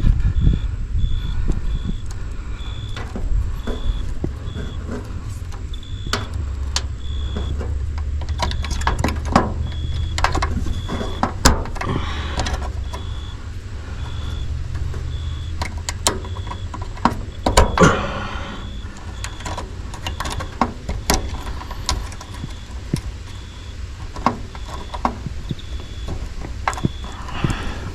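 Small clicks, taps and knocks of hand tools and wire handling on a heat pump's defrost control board, over a steady low rumble. A faint high beep or chirp repeats in short runs through most of it.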